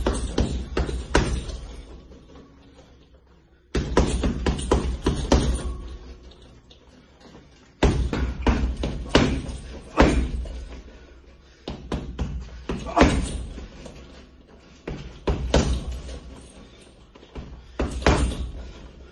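Punches landing on a hanging heavy punching bag, thrown in quick combinations of several blows with short pauses of a second or two between combinations. A brief falling tone follows some of the blows.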